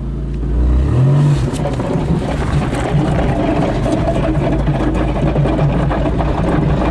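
An old Toyota car's engine, heard from inside the cabin, revs up about a second in as the car pulls away, then keeps running as it drives on, with a lot of rattling from the body.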